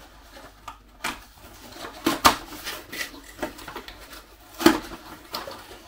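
Cardboard box and packaging handled by hand while a radio-control transmitter is lifted out: rustling with several sharp knocks and clicks, the loudest about two seconds in and again near five seconds.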